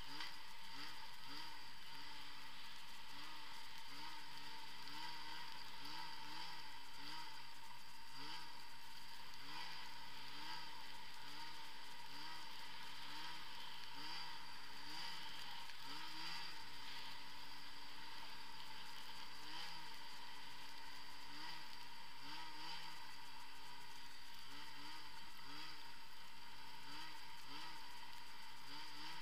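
Arctic Cat ZR 6000 El Tigre snowmobile's 600 cc two-stroke twin running under way, its engine pitch rising and falling about once a second as the throttle is worked along the trail.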